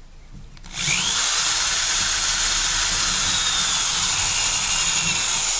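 Cordless drill spinning a wire cup brush against the steel head of an old hatchet, scouring off rust and smoothing the metal. The drill starts a little under a second in with a short rising whine and then runs steadily.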